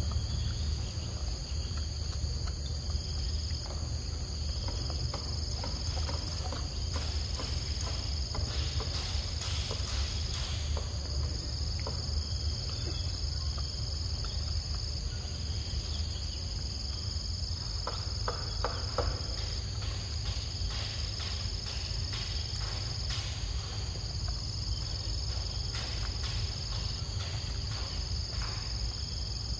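A steady, high-pitched insect chorus over a low rumble, with scattered small clicks from a macaque chewing mango close by.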